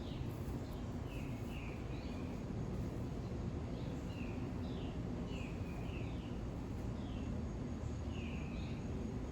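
A small bird chirping repeatedly, short high chirps about every half second, over a steady low background rumble.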